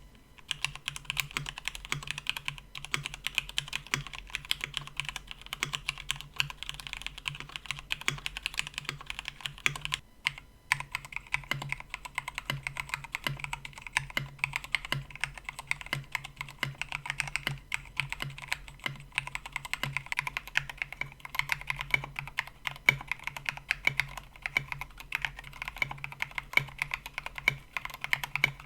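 Continuous, fast typing on a KBD67 Lite mechanical keyboard with stock Cherry MX Black Hyperglide linear switches in a polycarbonate plate, a dense run of keystroke clacks with a brief pause about ten seconds in.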